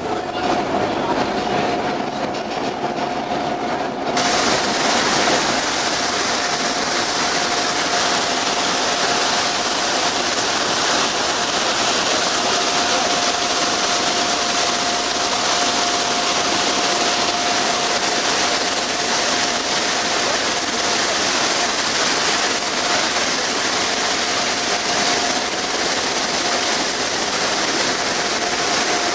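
Steady rush of churning sea water in a moving ferry's wake, mixed with wind noise and a steady whine running through it. The rush grows louder and brighter suddenly about four seconds in.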